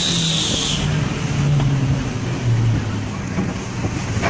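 Car engine running hard with road and tyre noise during a high-speed chase, heard from inside the car; the engine note steps down about two and a half seconds in. A high, steady whine cuts off just under a second in.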